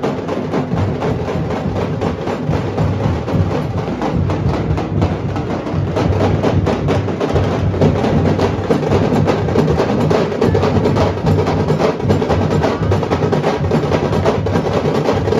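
Nashik dhol: several large dhol barrel drums beaten with sticks in a fast, dense, driving rhythm, getting a little louder about six seconds in.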